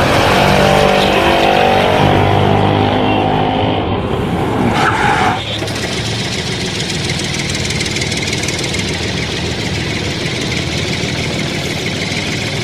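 Dubbed-in vehicle engine sound effect: for about the first five seconds an engine runs with a pitch that keeps shifting, then it changes to a steadier, rougher engine drone.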